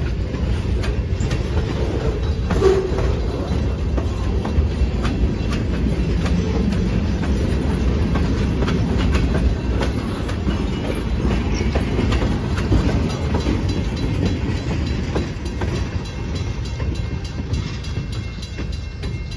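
Freight train rolling past: a steady low rumble of loaded flatcars and tank cars, with wheels clicking over the rail joints. The sound eases off near the end as the last car goes by.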